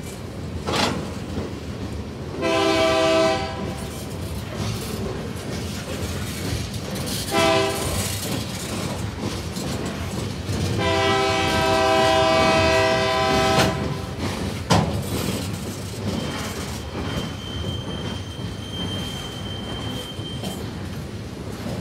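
Freight train's flat cars rolling past with a steady rumble and wheel clatter, while a locomotive horn sounds three times: a blast of about a second, a short toot, then a long blast of about three seconds. A sharp clank comes a little after the long blast, and a faint thin wheel squeal follows near the end.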